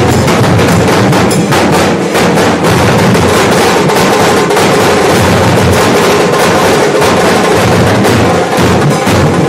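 Several large Nashik dhol drums beaten with sticks in a fast, dense, unbroken rhythm, very loud and close.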